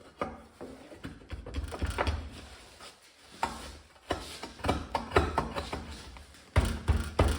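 Irregular scraping and knocking as a soft insulating firebrick is trimmed and worked into a steel gas-forge box, with a few heavier thumps near the end as it is seated.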